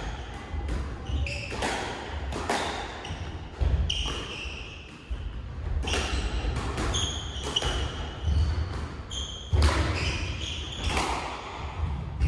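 Squash rally: the ball smacking off rackets and the walls again and again, with running footsteps and short shoe squeaks on the wooden court floor.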